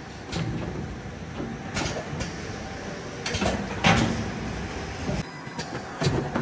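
Battery-cell conveyor of an OCV testing station running, with a series of sharp mechanical knocks and clacks as prismatic cells are set down and carried along toward the voltage and resistance test pins. The loudest knock comes about four seconds in.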